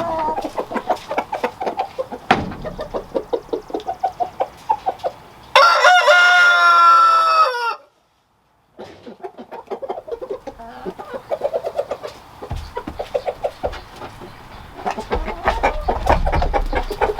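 Chickens clucking steadily in a coop, with a rooster crowing once about five and a half seconds in, a loud call lasting about two seconds that falls in pitch at the end. Just after the crow the sound drops out completely for under a second.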